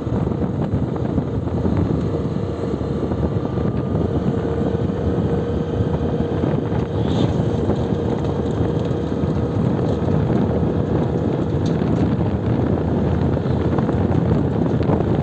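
Steady engine and road noise of a moving vehicle, with wind buffeting the microphone and a faint steady hum running through it.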